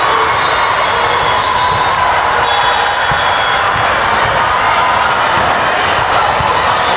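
Busy volleyball gym din: many overlapping voices with repeated dull thumps of balls being hit and bouncing on the court floor.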